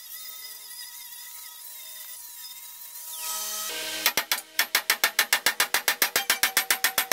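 Electric angle grinder whining as it grinds down an old weld on steel. About four seconds in it gives way to a loud, fast run of sharp metal-on-metal knocks, about six a second, evenly spaced.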